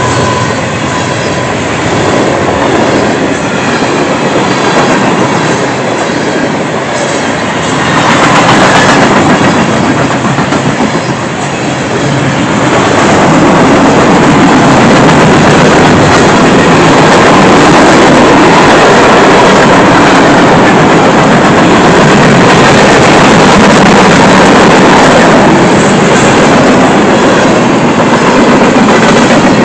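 Freight cars of a CSX train rolling past close by, with the steel wheels running on the rails in a loud, steady rumble that grows louder about 13 seconds in.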